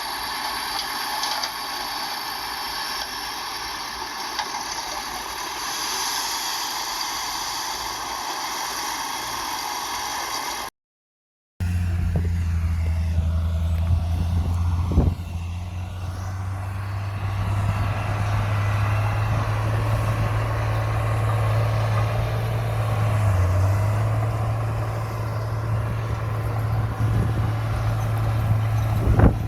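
Heavy diesel earthmoving machinery working. The first part is a busy mechanical clatter and whine. The sound drops out briefly about a third of the way in, and then a deep, steady diesel engine drone takes over, with a single sharp knock shortly after.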